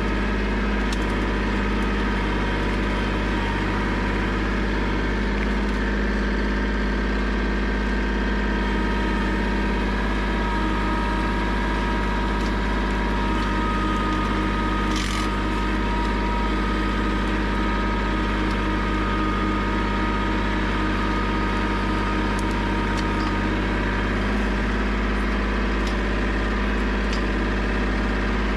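Compact tractor engine running at a steady speed while it drags a landscape rake through leaf litter and sticks, the tines scraping the debris.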